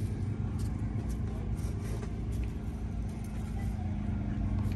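Steady low drone of a running engine, holding a constant pitch with no revving.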